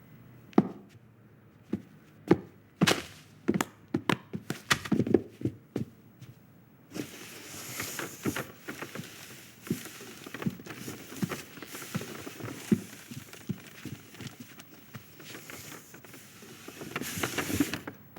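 Animated-film foley effects without dialogue: a run of sharp knocks and footstep-like thuds, then from about seven seconds in a steady hiss with scattered small taps, swelling briefly near the end.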